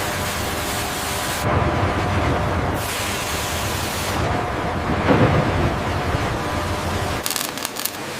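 Heavy-machinery factory noise: a steady rumbling hiss of industrial equipment. It changes character abruptly several times, and a few sharp ticks come near the end.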